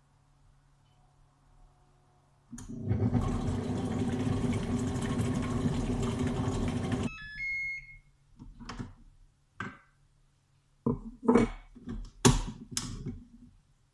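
Thermomix TM21 motor running steadily for about four and a half seconds, then stopping suddenly. A short high beep follows, then several separate knocks and clatters.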